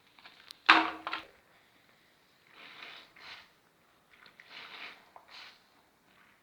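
Wet bar soap being lathered: a sharp knock under a second in, then soft swishing strokes in pairs.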